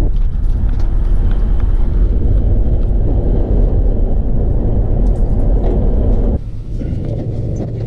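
Road noise inside a Chevy Express van's cabin on the move: a steady low rumble that drops off sharply about six seconds in.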